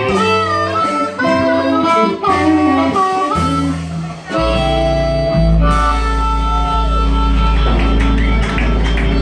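Live blues band: harmonica played cupped against a microphone, over electric guitar, upright bass and drums. From about four seconds in the band holds one long sustained chord.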